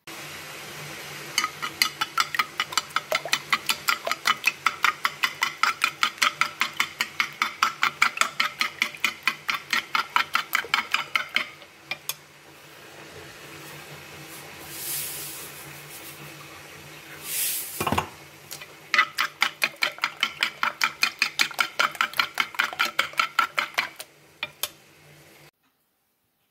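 Eggs being beaten with a fork in a glazed clay bowl: the fork clicks against the bowl about four or five times a second, in two long spells. Between them is a quieter stretch with two brief rushing sounds and a thump.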